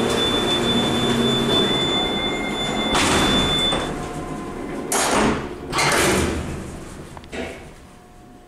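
Power-operated doors and mesh gate of a freight elevator closing: a door motor hums under a steady high-pitched closing alarm tone for about four seconds, then several loud bangs and clanks as the doors and gate shut.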